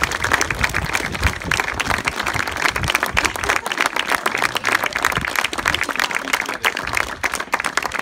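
Wedding guests applauding: dense, steady clapping from a small crowd.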